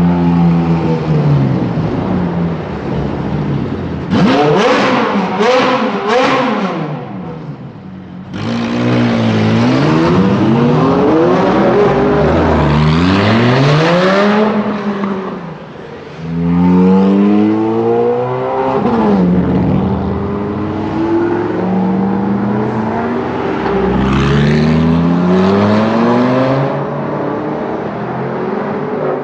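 High-revving supercar engines, among them a Ferrari 430 Scuderia's V8, accelerating hard. The pitch climbs and drops again and again as they shift up through the gears, with a burst of quick throttle blips about four to seven seconds in.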